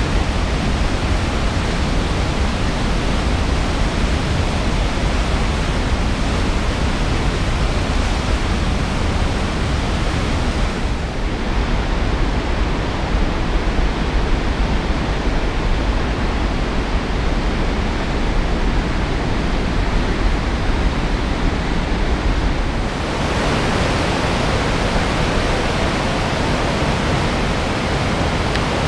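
River rapids of the St. Louis River rushing over rock ledges below the Thompson Dam: a loud, steady rush of whitewater. The tone shifts slightly twice, about 11 and 23 seconds in.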